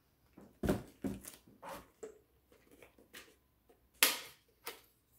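A handheld plastic drone remote being handled over cardboard packaging: a scatter of soft knocks and taps, with a louder brief scrape about four seconds in.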